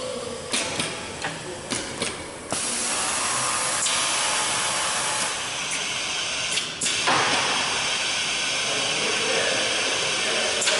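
FOREL DFN632A1 automatic desiccant filler (2001) working: several sharp pneumatic clacks in the first two seconds, then a steady hiss of compressed air as it blows desiccant into the spacer frame, with a few more clacks around four and seven seconds in.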